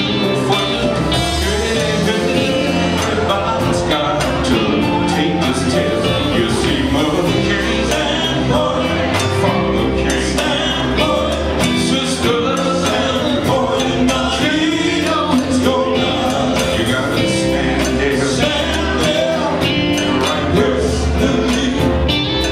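Male gospel group singing live, backed by electric guitar, electric bass, drum kit and keyboard, over a steady beat.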